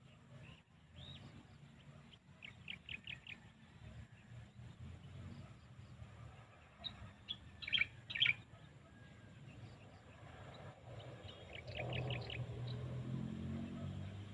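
Small birds chirping in short clusters of quick, high notes, three bursts spaced several seconds apart, the middle one the loudest, over a low rumble that swells near the end.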